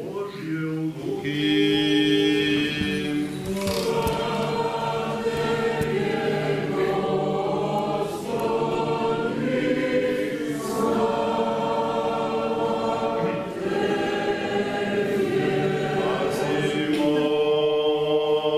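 Orthodox church choir singing a liturgical hymn in several voices, in long held phrases with short breaths between them.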